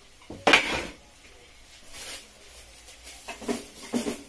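Kitchen handling sounds as a foil-lined tray is moved: one loud clatter about half a second in, then a few smaller knocks and rustles near the end.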